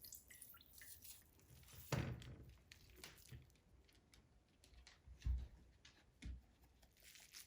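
Faint handling sounds of tofu wrapped in cheesecloth being wrung to squeeze out its water: a few soft squishes and dull thumps, the strongest about two seconds in and two more near the end.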